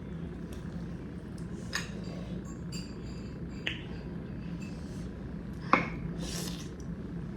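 Light clinks and clicks of dishes and tableware being handled during a meal. Three sharper ones come about two seconds apart, with faint ticks between, over a steady low hum.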